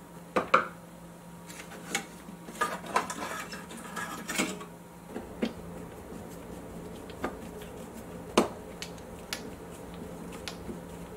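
Plastic lamp housing being handled and pressed into place on a stereo receiver's metal chassis: about a dozen irregular light clicks and knocks of plastic against metal, some with a short ringing, the sharpest about half a second in and about eight seconds in.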